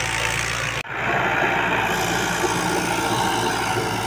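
New Holland tractor's diesel engine running steadily under load as it pulls a laser land leveler through loose soil. The sound drops out sharply for a moment about a second in, then carries on.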